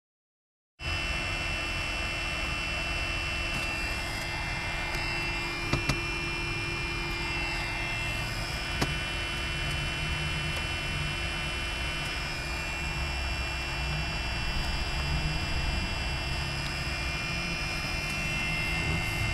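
Steady whirring hum from the small electric fan of a homemade 12-volt car heater-cooler unit running in heating mode, over a low rumble inside the car cabin. It starts about a second in after a moment of silence, with a couple of small clicks from handling the unit.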